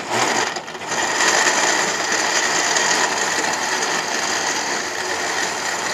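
Electric countertop blender running at full speed, grinding mango, yogurt and ice into lassi: a dense churning noise with a steady high whine, starting at once and building about a second in.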